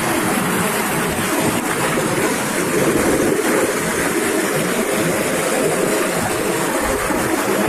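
Small rocky stream rushing and cascading over boulders: a loud, steady rush of white water.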